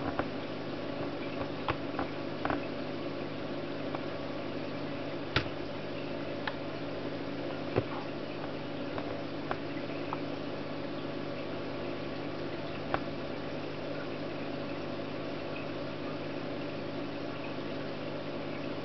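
Steady mechanical hum of a Samsung NB30 netbook running as it boots, with several faint clicks scattered through. The clearest clicks come about five and eight seconds in.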